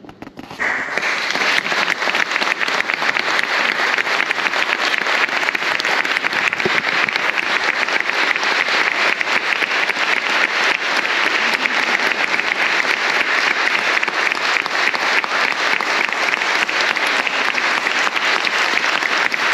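An audience breaks into applause about half a second in, just as the string quartet's piece ends, and keeps clapping at a steady level.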